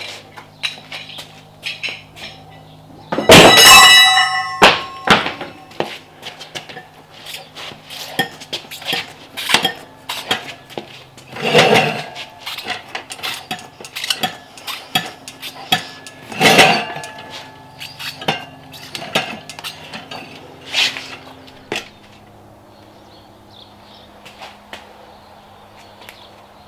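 Steel tire irons clinking, knocking and scraping against a dirt bike wheel rim while levering the tire off, with a loud ringing metal clang about three seconds in and heavier knocks around twelve and seventeen seconds. The clatter stops a few seconds before the end, leaving a faint low hum.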